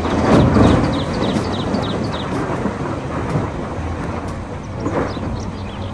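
A bucket load of earth pouring from a mining shovel into a dump truck's steel bed: a heavy rushing rumble, loudest in the first second as the load drops, with a smaller surge about five seconds in.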